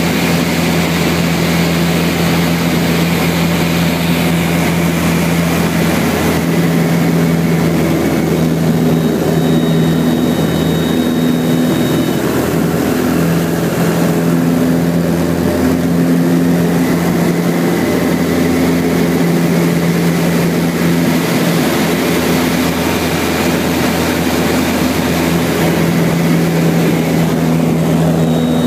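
An American Champion 8KCAB Decathlon's four-cylinder piston engine and propeller droning steadily, heard from inside the cockpit in flight.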